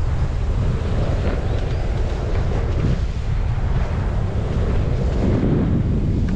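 Wind buffeting the microphone of a mountain biker's camera during a trail ride, a steady low rumble.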